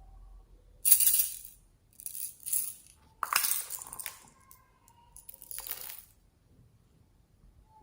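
Four short bursts of crisp rattling and crackling, the loudest about a second in, from slime-mixing materials being handled.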